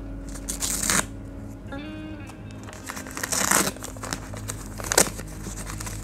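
Paper wrapping on a book parcel being torn and crinkled open by hand in a few short bursts, the sharpest about five seconds in, over quiet background music.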